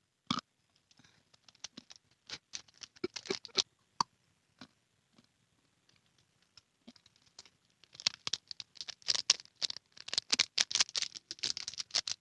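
Paper banknotes crinkled and rubbed close to a condenser mic as an ASMR test: irregular crackling and rustling, sparse at first and much busier and louder from about eight seconds in.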